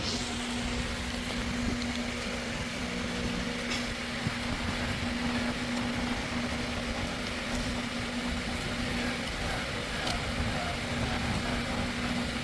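An engine running steadily, with a constant hum and a few faint ticks.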